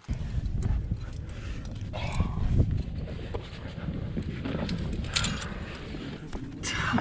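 Wind rumbling on a helmet-mounted camera microphone while a climber scrambles up rock, with clicks and scrapes of climbing gear and shoes on the stone.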